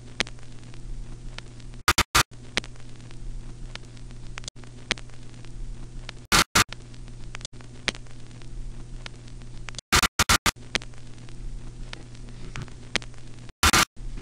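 Steady electrical hum under crackling static, broken about every four seconds by short, loud bursts of noise with brief cut-outs to silence.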